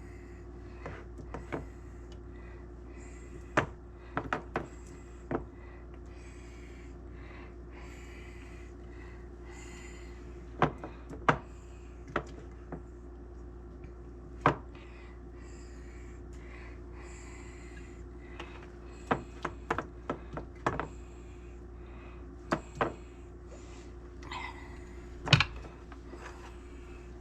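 About twenty light knocks and clicks at irregular moments, the loudest about three and a half seconds in, about fourteen and a half seconds in, and just after twenty-five seconds, over a steady low hum.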